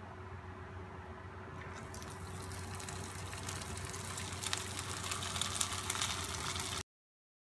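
Hot cooking oil in a frying pan starts sizzling and crackling about two seconds in, as bread-wrapped sausage pieces are lowered in, and grows louder as more go in. The sound cuts off abruptly near the end.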